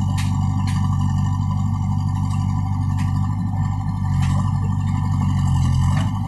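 JCB 3DX backhoe loader's diesel engine running steadily under load as the backhoe dumps a bucket of soil and swings back, with a few scattered clicks and knocks.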